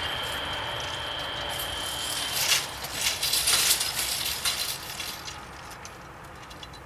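Level-crossing barrier arms rising, with a steady high whine that stops about two seconds in. A burst of clinking and rattling follows as the arms and their hanging lattice skirts settle upright, then fades out.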